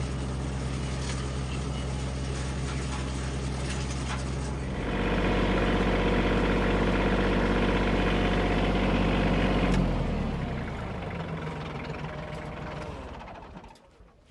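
A 35 hp tractor running a Frontier DH8 PTO wood chipper, a steady engine-and-machine sound that gets louder about five seconds in. Near ten seconds it falls in pitch and winds down, the chipper's flywheel spinning down to a stop shortly before the end.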